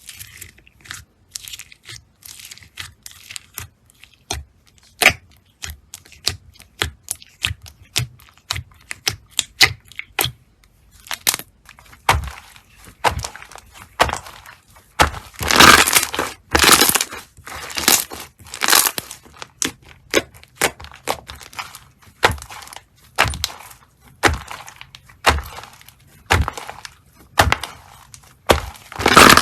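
Slime being pressed and squeezed by hand, giving many sharp crackling pops. They start sparse and get denser and louder about a third of the way in, with longer crunching stretches in the middle and near the end.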